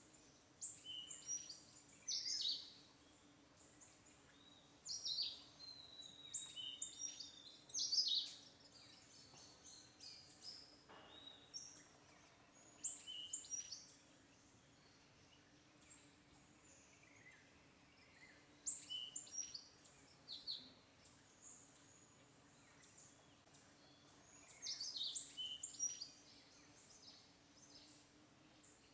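Small birds chirping and calling faintly in short clusters every few seconds, with a longer falling whistle about five seconds in, over a faint steady low hum.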